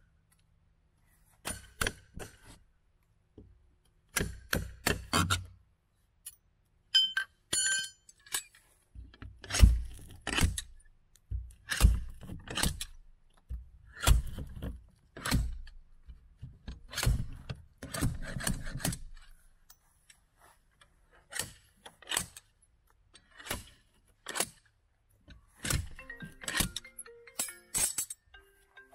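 Hand tools working nails out of old Celotex fiberboard wall sheathing: a metal pry bar and end-cutting pincers give an irregular run of sharp metallic clinks, taps and scrapes, with short silent gaps between them.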